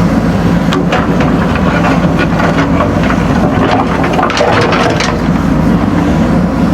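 JCB backhoe loader's diesel engine running steadily under load, with irregular knocks and clatter over it.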